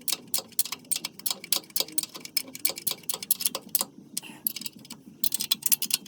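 Hand ratchet wrench clicking in quick runs, about six clicks a second, as mounting bolts are tightened; the clicking pauses a little under four seconds in and then starts again.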